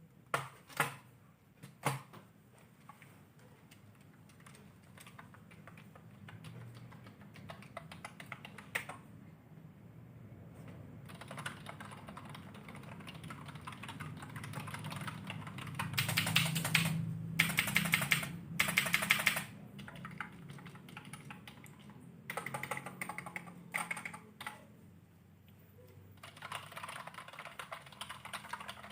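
Typing on a Zeus MK-440 keyboard: quick runs of key taps that grow louder, loudest in bursts past the middle with short pauses between. A few sharp single clicks come in the first two seconds.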